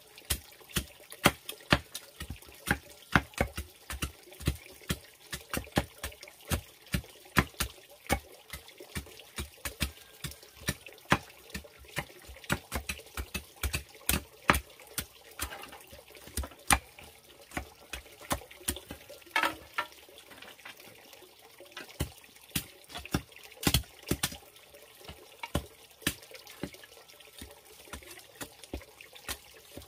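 Machete blades chopping and splitting green bamboo into strips: irregular sharp knocks and cracks, about two or three a second.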